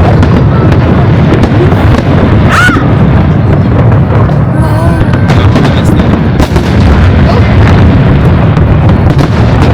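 Aerial fireworks going off in a dense, continuous barrage of booms and crackles, with a short whistle about two and a half seconds in.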